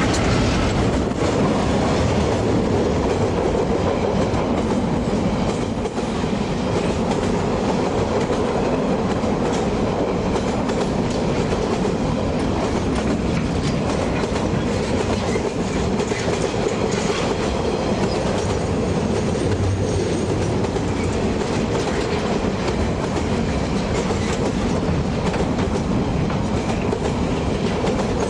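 Freight train wagons rolling close past: a steady, loud rumble with a continuous clatter of wheels on the track.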